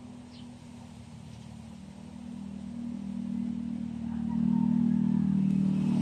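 A motor vehicle's engine running, growing louder over about two seconds and then holding steady.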